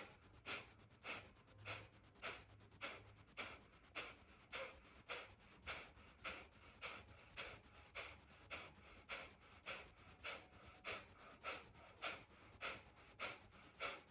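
Kapalabhati breathing: short, forceful exhales puffed out through the nose in a steady rhythm, a little under two a second, with the inhales passive and barely heard between them.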